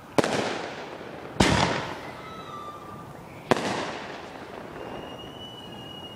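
Aerial fireworks bursting overhead: three sharp bangs, each echoing away, about a second and then two seconds apart. A thin high whistle from a whistling firework sounds near the end.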